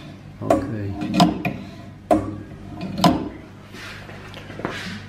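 OSW-5M carbide saw blade sharpening machine being adjusted by hand: a few sharp metal clicks and clunks in the first three seconds, then two short swishes near the end.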